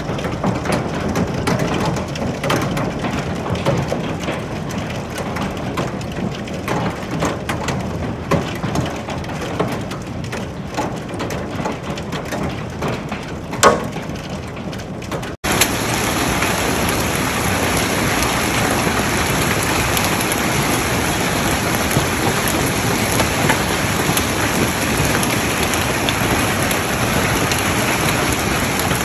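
Hailstones pelting a shingle roof and concrete driveway in a dense patter of small impacts, with one louder knock about 14 seconds in. About halfway it cuts suddenly to a steadier rush of wind-driven hail and rain.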